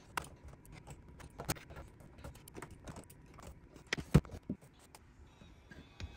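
Scattered small clicks and knocks of screws, a screwdriver and the aluminium case parts of a 17-inch MacBook Pro being handled and screwed back together, with one sharper knock about four seconds in.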